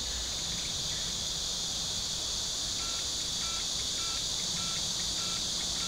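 Steady, high-pitched chorus of insects. From about halfway in, a short call repeats roughly every 0.7 s.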